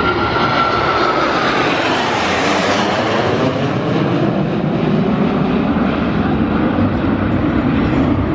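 Aircraft passing by during an air show display: engine noise swells to a peak about two to three seconds in, with a high whine that drops in pitch as it goes past, then settles into a steady rumble.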